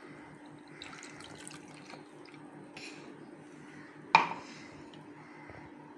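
Blended ginger-garlic paste and its juice pouring into a cloth-lined strainer and dripping through into a steel tumbler, faint and splashy. A single sharp knock about four seconds in is the loudest sound.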